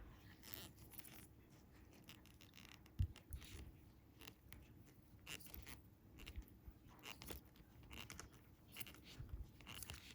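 Faint handling noise from fishing line and hooks being worked by hand to snell hooks: short scrapes and crinkles scattered throughout, with one dull knock about three seconds in.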